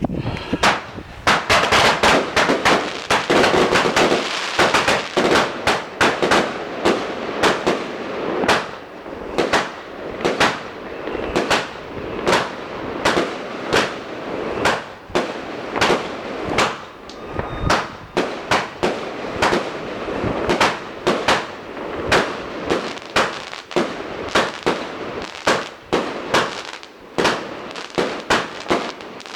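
Consumer fireworks going off in quick succession: a dense crackling volley of cracks and bangs for the first few seconds, then sharp reports at about two to three a second.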